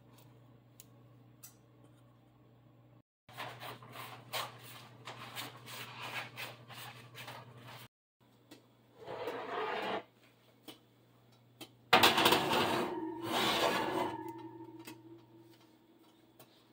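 Kitchen handling sounds: a run of light taps and scrapes, then an oven door opening and a cast-iron skillet clattering against the oven rack, about twelve seconds in. A ringing tone follows the clatter and fades over a few seconds.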